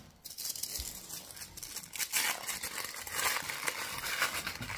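Packaging crinkling and rustling as a newly unboxed shoe is handled, in irregular crackles that grow busier in the second half.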